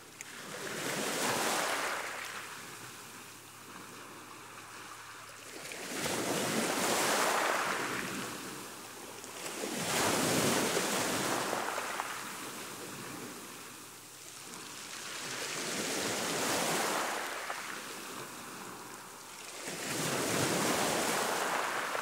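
Choppy sea wash: waves surging in and drawing back, five swells of rushing water a few seconds apart, each rising and fading.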